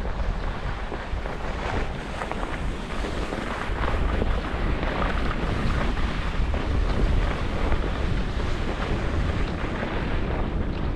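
Wind rushing over the GoPro HERO11's microphone as it skis downhill, a steady rumble, mixed with the hiss and scrape of skis running over the snow.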